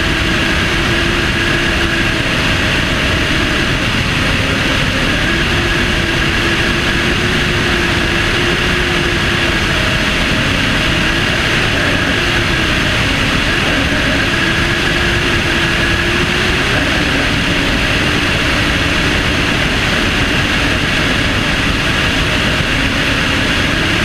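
Aircraft in flight heard from a camera mounted on its wing tip: a steady engine drone with a faintly wavering pitch, under a loud, even rush of wind over the microphone.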